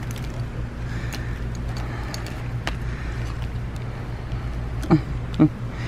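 Clothes hangers clicking faintly as garments are pushed along a store rack, over a steady low background hum. Two brief sounds with a falling pitch near the end.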